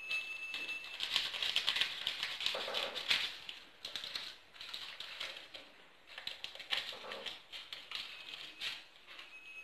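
Flour being added to a glazed clay bowl of chocolate batter by hand: rapid light clicks, taps and rustling in irregular bursts.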